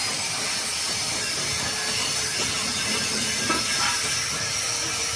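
Steady loud hiss, with a faint knock about three and a half seconds in.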